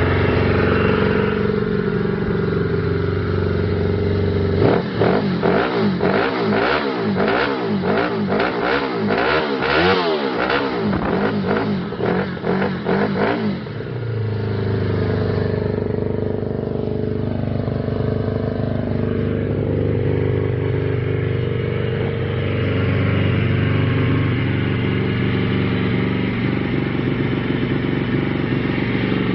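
1988 Suzuki GSX 750's inline-four engine idling, then revved over and over in a run of throttle blips from about five seconds in, the pitch rising and falling, before settling back to a steady idle about fourteen seconds in. The bike has just been started again after three months laid up.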